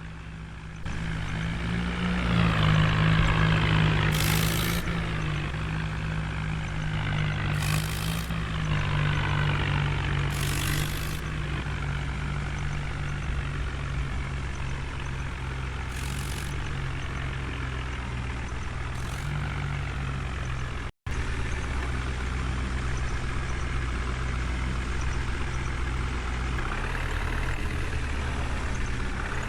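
Heavy diesel engine of a JCB 3DX backhoe loader working, its pitch and load rising and falling, with whining sweeps from the hydraulics and a few short knocks. The engine note picks up about a second in and is loudest for the next few seconds.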